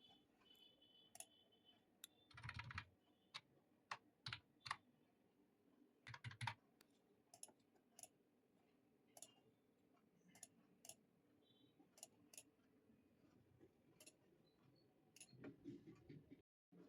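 Faint, scattered key presses on a computer keyboard, mostly single clicks about once a second, with two quick flurries of keystrokes.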